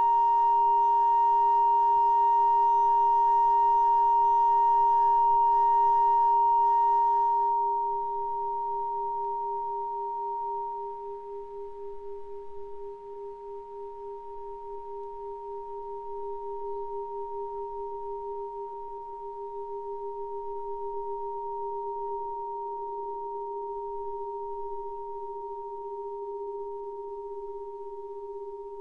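Sustained electronic drone of two steady tones, a high one and a lower one, from an experimental rig of amplified electric guitar and strings, contact microphones, distortion pedal and mixer. The high tone with its upper overtones is loudest at first and drops away about eight seconds in. The lower tone carries on with a fast, faint pulsing.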